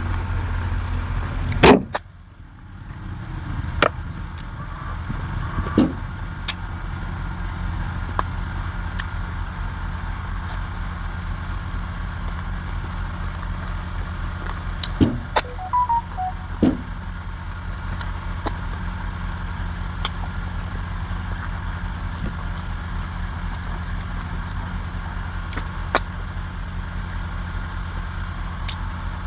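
An engine running steadily with an even low pulse, with a few sharp clicks or knocks over it, the loudest about two seconds in.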